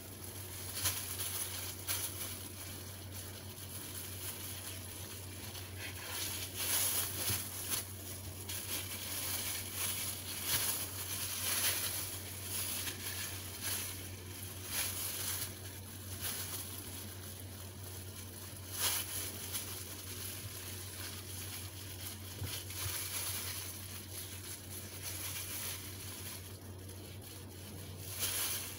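Knife slicing raw pork on a wooden cutting board, with irregular taps and the crinkle of plastic gloves handling the meat, over a steady low hum.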